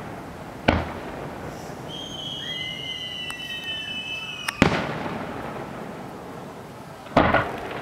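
Aerial firework shells bursting: three sharp bangs, about a second in, near the middle and near the end, the last one doubled. Several high whistles sound in between the first two bangs.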